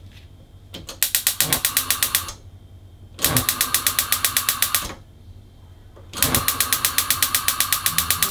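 Gas stove's electric spark igniter clicking rapidly, about a dozen clicks a second, while the burner knob is pushed in and turned. It comes in three bursts of one to two seconds each, with short pauses between.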